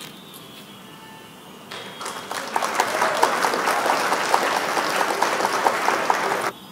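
Applause sound effect, a crowd clapping, marking the reveal of the correct answer. It swells in about two seconds in and cuts off abruptly near the end, after a little faint background music.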